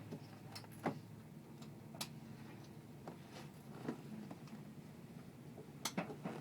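Inside a moving train carriage: a low steady hum with scattered, irregular clicks and ticks, the sharpest a little under a second in, at about two seconds, and a quick cluster near the end.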